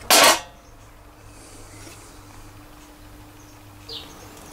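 Spot welder firing once on a steel patch panel: one short, loud burst lasting about a third of a second, followed by a faint steady hum.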